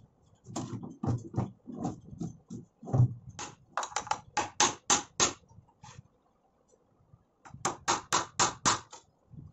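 A hammer tapping nails into a plywood board in quick runs of sharp strikes, one starting about three and a half seconds in and another near the end. Before that, a few duller knocks and thumps.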